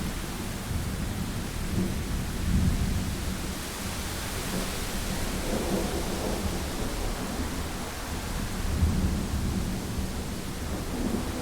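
Thunderstorm: steady rain with rolling thunder rumbling low, swelling about two seconds in and again near the end.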